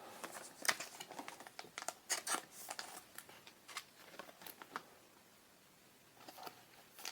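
Faint, scattered rustling and crinkling of trading cards and foil booster-pack wrappers being handled, with a short quiet pause about five seconds in.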